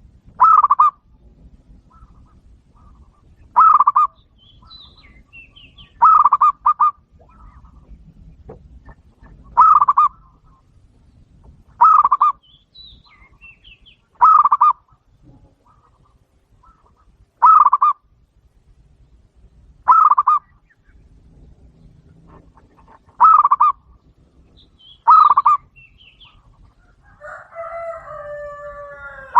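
A caged dove calling over and over, each call a short burst of quick pulsed notes, about ten calls spaced two to three seconds apart. Near the end comes a longer call with a falling pitch.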